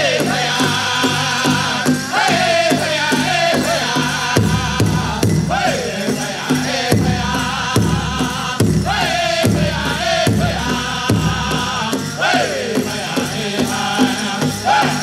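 Powwow drum group singing a grass dance song over the steady beat of a shared big drum. Several high voices sing in phrases that start high and slide downward, the phrases coming every few seconds.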